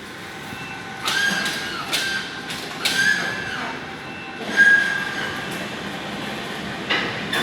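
Electric hoist crane running under load during a post-repair load test, with a high squeal that comes and goes several times over a steady mechanical running noise, and scattered sharp clicks and knocks.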